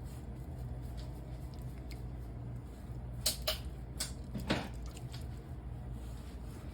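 Kitchen handling sounds: a few sharp clicks and knocks of utensils or a baking tray about three seconds in, then a short scrape, over a steady low hum.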